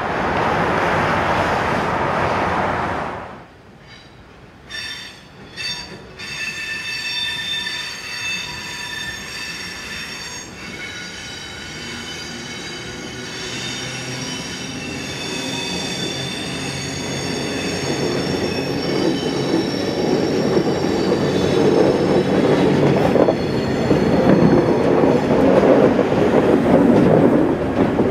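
Road traffic for the first few seconds, then a vintage Sydney electric train set (the heritage F1 set) grinding round a curve with a high, several-toned wheel squeal, followed by the rumble of its red carriages passing close, growing louder near the end.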